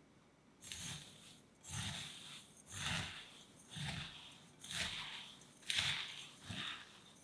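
Crisp, rustling crunch of shredded kataifi pastry being stirred or tossed with a spatula, seven strokes about one a second, each with a soft low thud.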